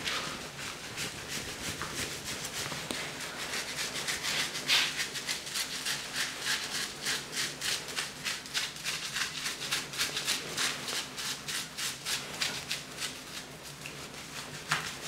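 A hand scrubbing shampoo lather into a dachshund's wet coat: repeated rubbing strokes through the foam, several a second.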